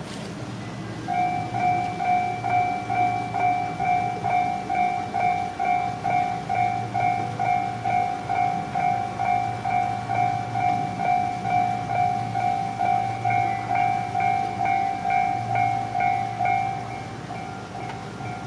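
Railway level-crossing warning alarm ringing, one pitched tone struck about twice a second. It starts about a second in and stops near the end.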